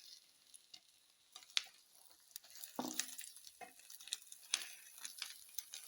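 Omelette frying faintly in a pan, with scattered clicks and scrapes of a spatula against the pan as the omelette is folded over its filling.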